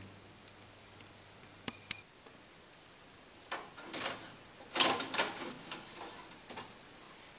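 A metal board being worked out of an SGI Altix 4700 blade chassis: a few light clicks, then from about three and a half seconds in a run of metallic clunks and scraping as the board slides out of its slot.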